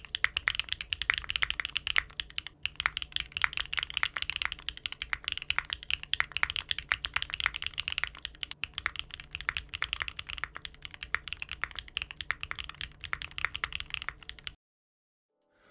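Fast, steady typing on a mechanical keyboard fitted with HMX Blossom linear switches: a dense run of keystroke clacks that stops suddenly about a second before the end.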